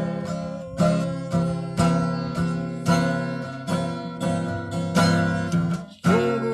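Acoustic guitar strummed in a steady rhythm, about two strokes a second, with a brief break just before the end.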